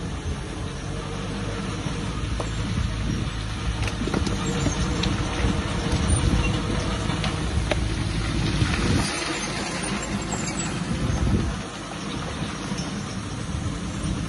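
Heavy earthmoving machinery working: a large diesel engine running under load, with a few sharp metallic clanks along the way.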